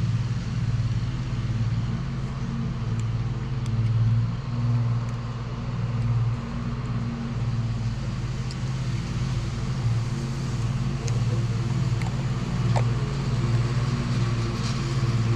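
Engine running steadily at a constant speed: a low, even hum with a few faint clicks over it.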